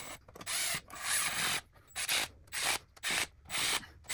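Hand ratchet worked back and forth, running down the valve body bolts on a 68RFE transmission: a rhythmic rasping stroke about twice a second.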